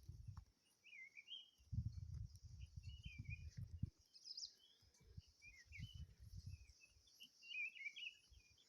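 Small songbirds chirping in short, warbling phrases again and again, faint against a steady high insect hiss. A low rumble comes and goes.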